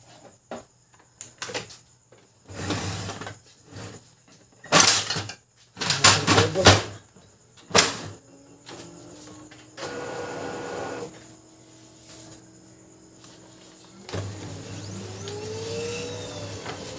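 Brother DCP-L2540DW laser printer being handled and started: several knocks and clatters, then its motors run, a short steady whirr followed by a motor winding up in pitch and settling into a steady hum.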